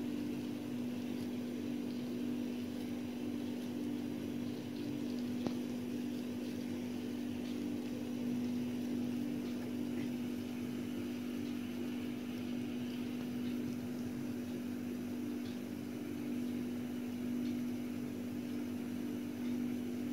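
A steady low mechanical hum with a faint click about five and a half seconds in.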